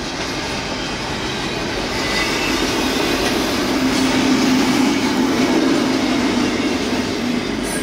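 Freight train rolling past, with a continuous rumble and rattle of cars on the rails. A steady low tone comes in about halfway through and fades near the end.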